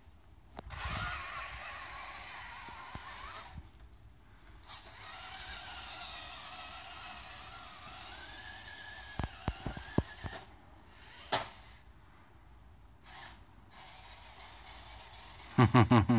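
Small electric motor and gearbox of a 1/14 scale RC rock crawler whining as it drives, the pitch rising and falling with the throttle in two runs, with a few sharp clicks after the second run. A loud short burst of noise at the very end.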